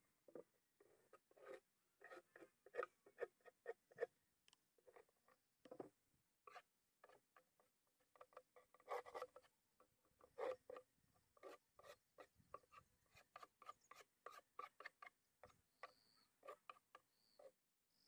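Metal hive tool scraping and prying at a wooden beehive box as it is cleaned out: a long run of short, irregular scrapes and clicks.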